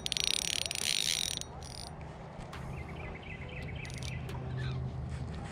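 Fishing reel buzzing with a fast run of clicks for about the first second and a half as a hooked freshwater drum pulls on the line. Insects chirp faintly in the background.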